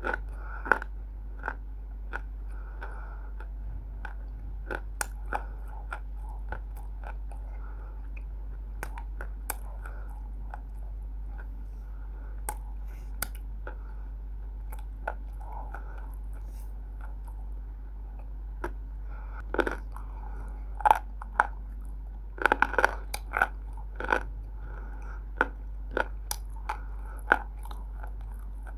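Roasted multani mitti (fuller's earth clay) being bitten and chewed: irregular sharp crunches and snaps, coming thicker and louder in the second half, over a steady low hum.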